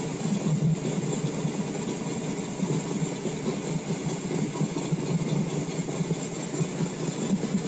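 Small-block V8 on E85 through a blow-through carburetor, idling steadily while it warms up after a cold start without choke, heard from inside the cab.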